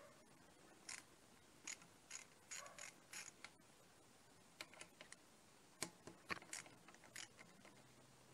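Ratchet wrench clicking in short, irregular runs of strokes while working a bolt on a motorcycle engine's cylinder head.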